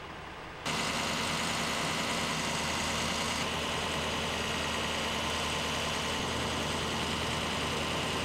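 Heavy truck engine idling steadily, the kind of diesel running on the fire engines parked at the scene. It starts suddenly under a second in and then holds an even hum.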